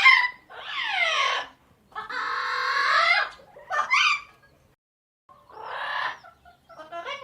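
Parrot squawking and calling in a run of separate calls, one sliding down in pitch and a longer, harsh drawn-out call in the middle, with short squawks around them.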